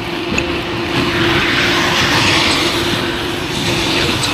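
Motorcycle riding along with a steady engine hum, under wind and road noise that swells in the middle.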